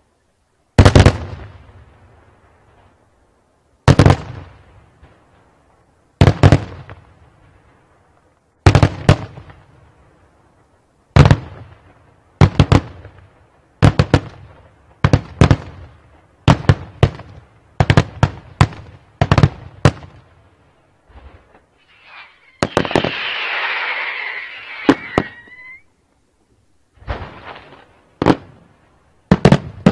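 Daytime fireworks display: aerial shells bursting with coloured smoke, each a sharp bang with a rolling echo. The bangs come every few seconds, then about once a second. Past the middle there are a few seconds of hissing, whistling crackle, and near the end a fast run of bangs.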